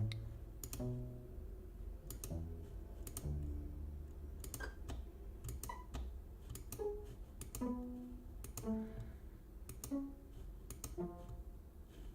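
Sampled cello pizzicato notes, short plucks played one at a time at changing pitches as the patch is tried out, with scattered sharp clicks between them.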